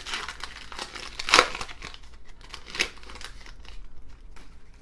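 Foil wrapper of a baseball card pack being torn open and crinkled, a run of irregular rustles with two louder rips about a second and a half and three seconds in.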